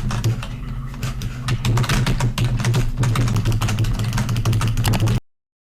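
Rapid computer-keyboard typing and clicking, many keystrokes a second, over a steady low hum; it cuts off suddenly about five seconds in.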